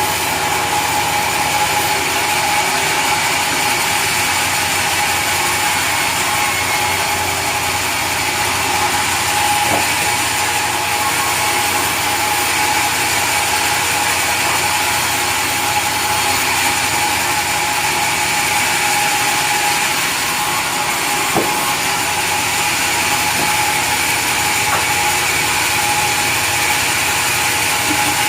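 Sawmill saw machinery running steadily, with a constant whine over a mechanical hum. Two brief knocks come, about ten seconds in and again past twenty seconds.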